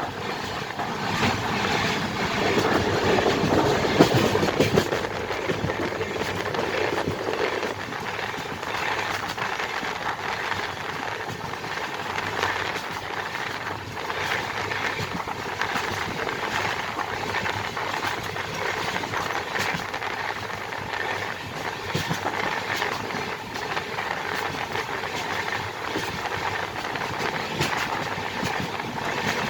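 Express passenger train running at high speed, heard from aboard a coach: a steady rolling rush of wheels on rail with scattered clicks, louder and heavier for the first several seconds.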